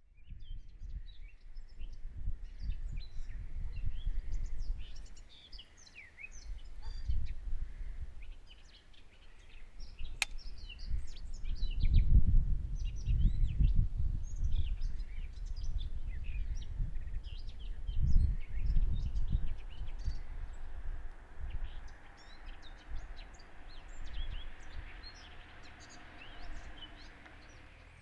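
Birds chirping and singing throughout, over an uneven low rumble that swells and fades and is loudest around the middle, with one sharp click about ten seconds in.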